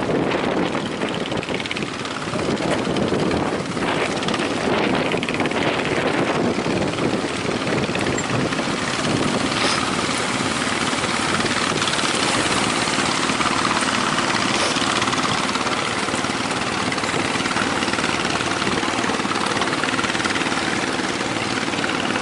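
Fishing boat engine running steadily under a loud rush of wind on the microphone.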